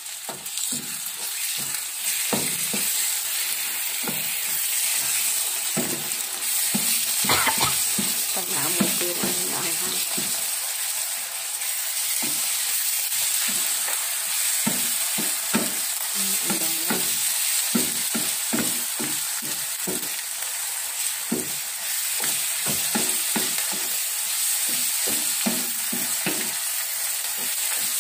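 Bagoong alamang (fermented shrimp paste) sizzling in hot oil with onion and chili in a frying pan, stirred with a wooden spatula that scrapes and knocks against the pan many times.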